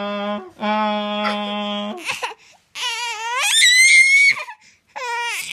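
A person holds a long, steady 'ahhh' twice, then a baby girl answers with a high cry that rises sharply in pitch, and gives a shorter cry near the end.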